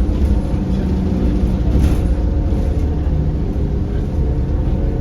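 Optare Solo M900 midibus heard from inside while under way: a steady low engine and driveline drone with a whine that shifts in pitch. There is a brief noise about two seconds in.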